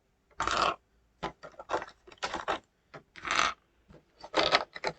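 Small plastic model kit parts being picked up and set down: an irregular run of short clicks, clacks and brief scraping rustles.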